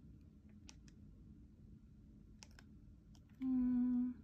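A few light, separate clicks of TV remote-control buttons paging through an on-screen menu, over a low steady room hum. Near the end a woman gives one short, level-pitched hummed "mmm".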